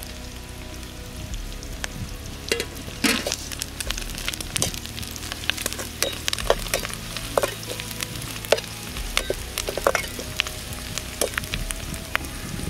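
Sliced onions, curry leaves and green chillies sizzling in hot oil in a metal kadai, with a metal ladle scraping and clicking against the pan at irregular moments as they are stirred.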